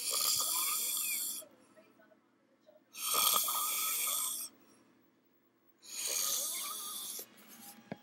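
A man snoring in his sleep: three long snores about three seconds apart, each lasting well over a second. He is a habitual, severe snorer.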